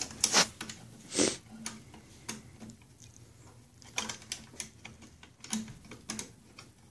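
A small metal mounting bracket clicking and scraping against a printer's sheet-metal frame as it is worked into place by hand: scattered light clicks and taps, with a short scrape about a second in.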